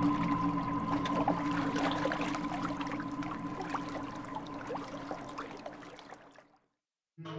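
Ambient soundtrack drone of steady held tones with lapping, trickling water and small blips over it, fading out slowly to silence about six and a half seconds in. New music starts right at the end.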